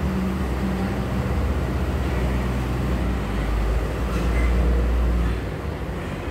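A steady low rumble, like a vehicle engine, that eases off about five seconds in.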